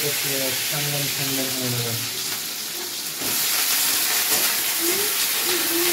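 Cut vegetable pieces sizzling as they fry in hot oil in a kadhai, stirred with a ladle; the sizzle grows brighter about halfway through. A voice sounds faintly in the first two seconds and again near the end.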